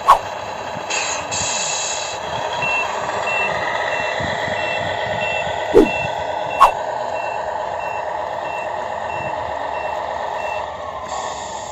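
Sound unit of a 1/14 Tamiya Scania R440 RC truck playing a running diesel engine with a reversing alarm beeping about one and a half times a second while the truck backs up. Three short, loud pops sound, one at the start and two about halfway through.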